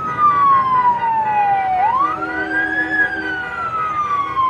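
A siren wailing: its pitch slides slowly down, sweeps quickly back up about two seconds in, then slides slowly down again.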